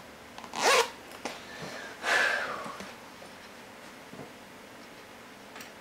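Two loud breaths through the nose close to the microphone: a short sharp sniff just under a second in, then a longer breath about two seconds in, with a few faint ticks from handling the work.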